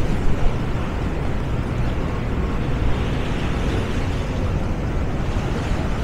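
Steady, fluttering low rumble of wind buffeting the microphone, over a wash of outdoor noise.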